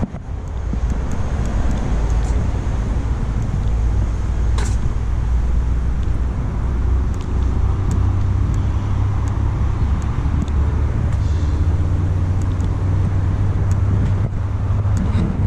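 A motor vehicle's engine running: a steady low rumble.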